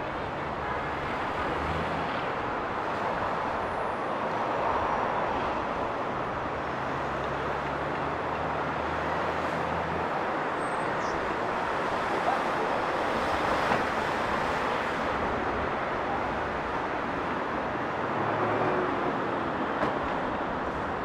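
City street traffic noise: vehicles running and passing, with a low engine hum through roughly the first half that fades, then returns briefly near the end.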